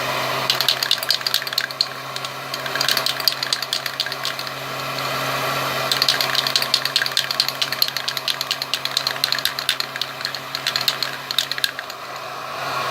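Electric heat gun blowing with a steady hum, while an aerosol paint can is shaken in four spells, its mixing ball rattling rapidly inside.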